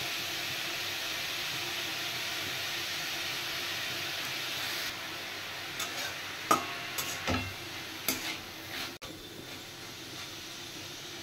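Diced potato, onion and chopped chicken sizzling in oil in a metal kadai. The sizzle drops a little about five seconds in, and then a spatula scrapes and knocks against the pan several times as the mixture is stirred.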